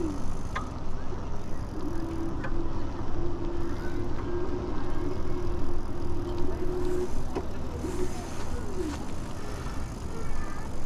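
E-bike rolling along a concrete path: steady low rumble of wind on the microphone and tyre noise, with an even hum from the Ride1Up Cafe Cruiser's hub motor from about two seconds in to about seven seconds. A couple of short tones slide downward in pitch, once near the start and once about nine seconds in.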